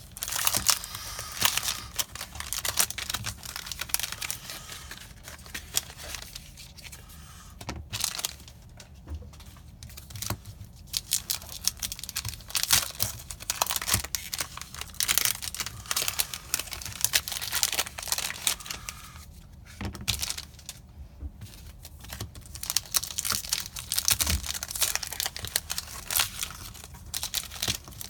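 Foil booster pack wrappers of Magic: The Gathering Core Set 2019 being torn open and crinkled by hand. The tearing and crinkling come in repeated bursts, with a couple of quieter pauses between packs.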